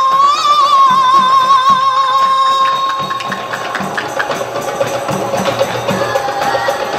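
Marawis ensemble performing: a girl's high voice holds one long wavering note over a steady beat on the marawis hand drums. The note ends about three seconds in, and the drumming carries on with a busier run of strokes.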